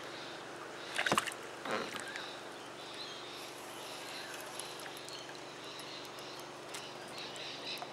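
A short rattle of sharp knocks about a second in, and a smaller one just after, from fishing tackle being handled in a kayak, over a faint steady outdoor background with high chirps.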